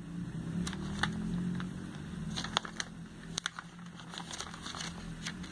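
Glossy catalogue pages being turned and handled by hand: scattered light paper crackles and rustles over a low steady hum.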